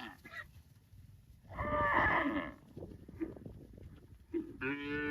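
A cow mooing: one loud moo about a second and a half in, lasting about a second, and another call starting near the end.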